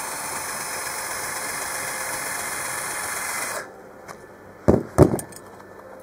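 Cordless drill spinning a wire wheel against a fresh weld on a steel exhaust pipe, brushing it clean: a steady scratchy noise that stops about three and a half seconds in. About a second later come two sharp knocks close together.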